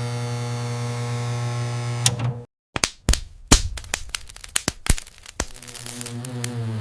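A steady electric hum that cuts off suddenly about two and a half seconds in, followed by a quick string of sharp clicks and knocks.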